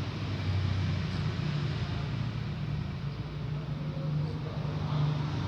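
A steady low mechanical hum, like a motor running, its pitch shifting slightly about halfway through.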